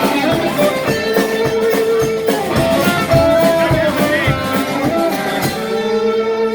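Live band playing, with electric guitar over drums; from about five and a half seconds in, a long note is held.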